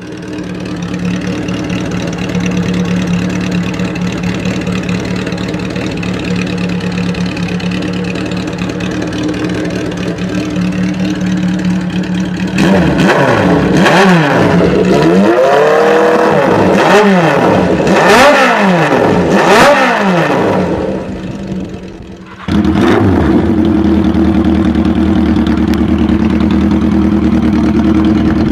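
Old Japanese motorcycle engine idling steadily, then revved in about five quick blips. After a short dip, an engine idles steadily again, starting abruptly.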